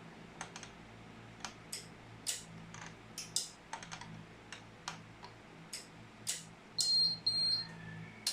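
Riello UPS 5000 uninterruptible power supply powering up: scattered irregular clicks over a low steady hum, then about seven seconds in its buzzer gives a high two-part beep.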